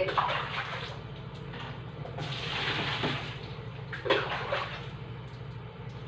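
Water sloshing and splashing in the wash tub of a twin-tub washing machine, in several short splashes and one longer wash of water about two seconds in, over a steady low hum.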